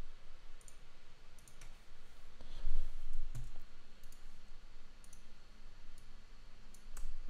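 Computer mouse clicking at irregular intervals, single clicks and quick double clicks, with a low thump a little before the middle.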